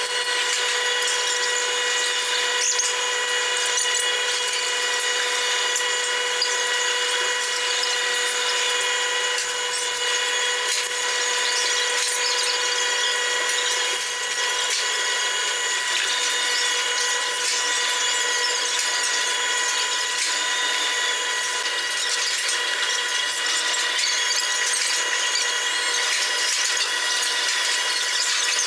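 Rotary milking parlour machinery running: a steady mechanical whine of several constant tones over a hiss, unchanging throughout.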